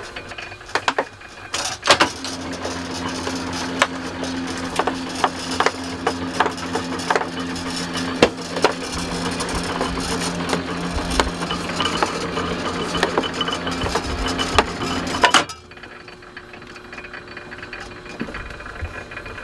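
Belt-driven udon noodle-making machine, in use since 1972, running as its rollers press crumbly dough into a sheet: a steady motor hum under irregular clattering knocks. The hum comes in about two seconds in and stops abruptly about four seconds before the end, leaving a quieter background.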